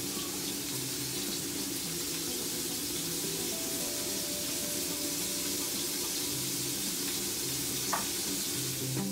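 A steady hiss with faint music beneath it.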